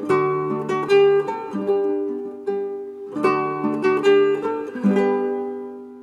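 Background music: a plucked string instrument, ukulele or guitar-like, plays a light melody, ending on a chord that rings and fades away.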